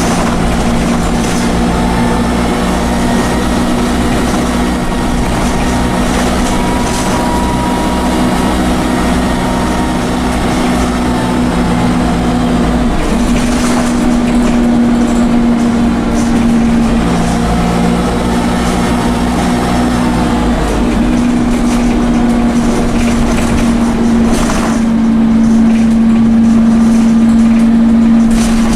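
Dennis Dart bus's Cummins diesel engine running under way, heard on board, with a turbo whine over the engine note. The engine note dips briefly and comes back a couple of times.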